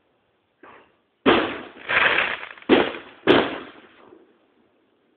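Aerial firework shells bursting in the sky: a faint bang, then four loud bangs within about two seconds, each dying away quickly.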